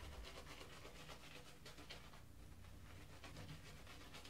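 Faint, rhythmic swishing of a boar-bristle shaving brush working lather over wet stubble, a few strokes a second, with a short pause about two seconds in.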